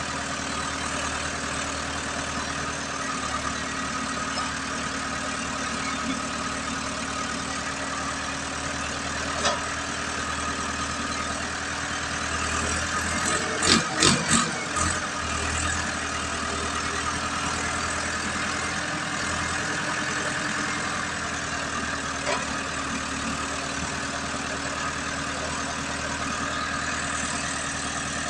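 Landini tractor's diesel engine running steadily while it works a hydraulic grab loader. A quick run of loud knocks comes about halfway through, with single clicks a few seconds before and after.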